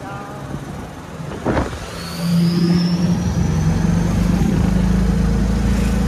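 A vehicle's engine drones steadily and grows louder about two seconds in, with a faint high whine rising in pitch.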